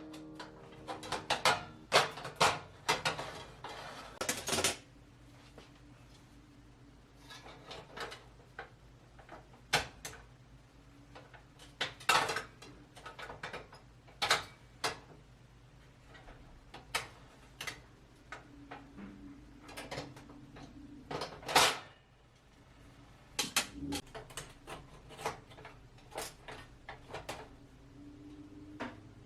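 Dishes and cutlery clinking and clattering as they are handled, in irregular knocks with short quiet gaps and a few louder clanks.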